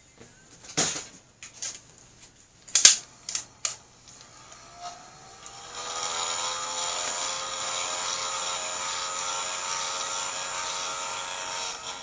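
A few sharp clicks, then about five seconds in an electric heat gun starts up, its fan whine rising in pitch and settling into a steady blowing hum. It is being run over wet epoxy to pop micro bubbles.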